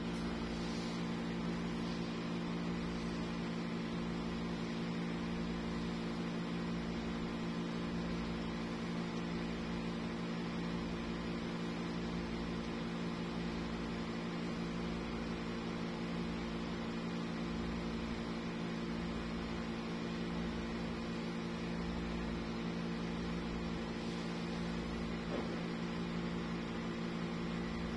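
Steady mechanical hum with a deep throb underneath that swells and fades about once every second and a half.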